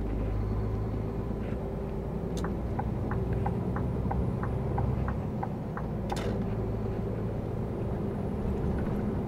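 Truck's diesel engine running steadily at road speed, heard from inside the cab as a low hum. A run of light ticks sounds through the middle, and two sharper clicks come about two and a half and six seconds in.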